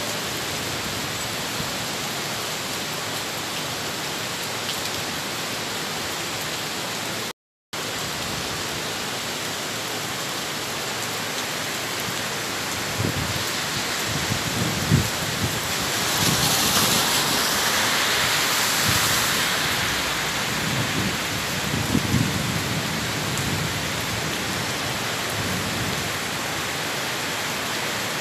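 Heavy rain falling steadily on a wet road, a dense even hiss that cuts out for a moment about seven seconds in. Past the middle a low rumbling comes in with a few thumps, and the hiss swells louder for a few seconds.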